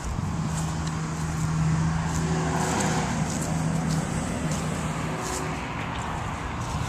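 A motor vehicle passing on the nearby street: a steady engine hum that swells about two seconds in and then slowly eases off.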